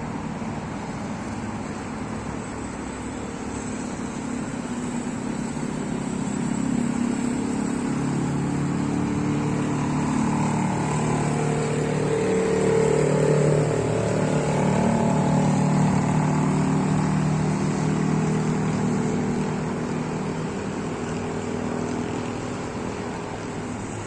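A motor vehicle's engine running, growing louder to a peak about halfway through, then fading away, its pitch shifting up and down as it goes.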